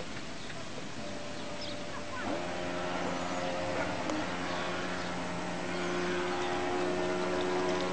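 Model cabin cruiser's 12-volt water-cooled 850 electric motor starting about two seconds in with a short rising whine, then running at a steady pitch over a steady hiss.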